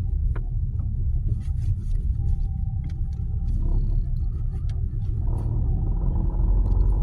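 Nissan Qashqai 1.2-litre engine running, a steady low rumble with irregular light clicks and knocks over it: the rattling noise that the owner wants fixed.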